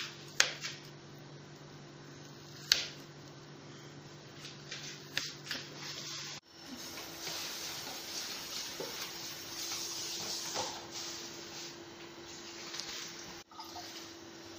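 A few sharp clicks of a knife on a plastic cutting board while butter is sliced, then a steady sizzle from chicken pieces cooking in a pot.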